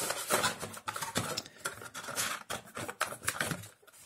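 A hand handling an emptied cardboard booster display box: a run of rustling, scraping and light taps on the cardboard, stopping just before the end.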